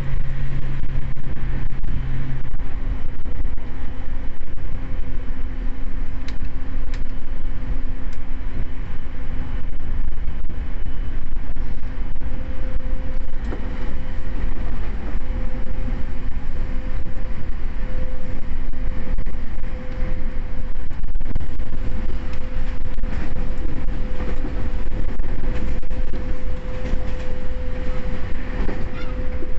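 E231 series electric train running at speed, heard from inside the car: a continuous rumble of wheels on rails with steady motor hum. A low hum stops about two seconds in.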